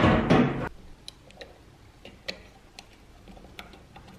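A loud rushing burst cuts off under a second in. Then come a few faint, irregular clicks and ticks of hands handling small plastic parts and wires.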